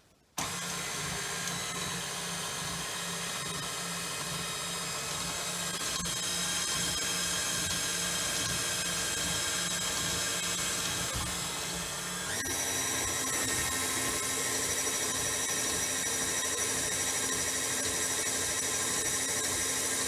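Electric mixer whisking pancake batter, its motor starting and running steadily with a whine; about twelve seconds in its pitch steps up.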